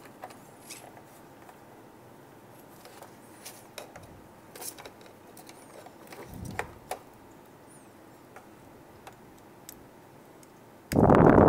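Faint clicks and rustles of servo wires and small plastic plug connectors being handled and pushed onto a receiver's pins, with a loud rustle of handling noise lasting about a second near the end.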